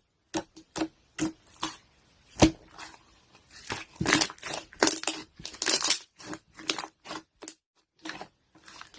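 Rapid, irregular crackling and crunching sounds close to the microphone, like something crisp being crushed and torn, with a brief pause near the end.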